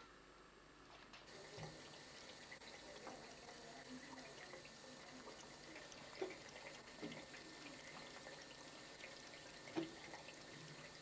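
Faint trickle of a tap running into a bathroom sink, starting about a second in, with a few soft clicks.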